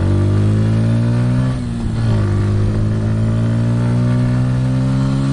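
Bajaj Pulsar N150's single-cylinder engine pulling under acceleration while riding. Its pitch climbs, drops briefly about a second and a half in as it shifts up a gear, then climbs again.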